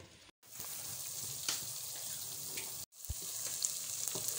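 Sliced onions sizzling steadily as they fry in hot oil in a pot, still at the pale early stage before turning golden brown. The sizzle cuts out abruptly twice, for an instant each time.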